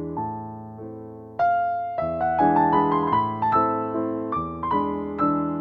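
Background piano music: a gentle melody of single notes, getting louder about a second and a half in.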